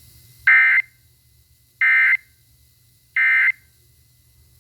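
Three short bursts of Emergency Alert System SAME data tones, evenly spaced about a second and a third apart: the end-of-message code that closes an EAS severe thunderstorm warning broadcast.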